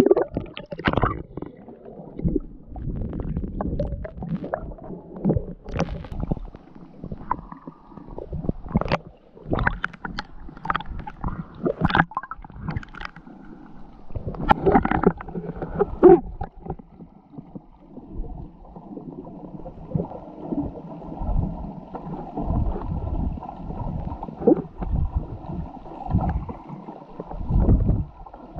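Water gurgling and sloshing around a snorkeller, in irregular splashy bursts, settling into a steadier rushing sound about halfway through.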